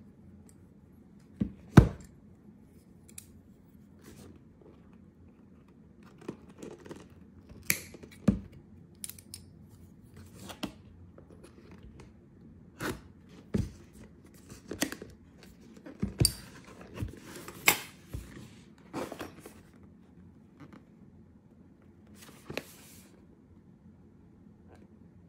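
Scissors snipping through the seal on a cardboard product box, amid scattered taps and rustles of the box being handled. A sharp knock about two seconds in is the loudest sound.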